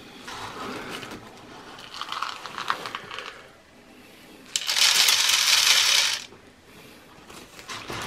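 Bird seed poured from a plastic bag into a tube feeder, the grains pattering down for just under two seconds about halfway through. Fainter rattling of seed a couple of seconds earlier.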